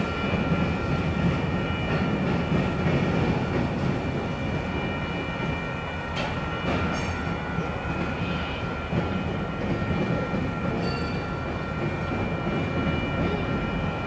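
Freight train rolling past: steady rumble of wheels on rail, with a couple of brief high squeals partway through.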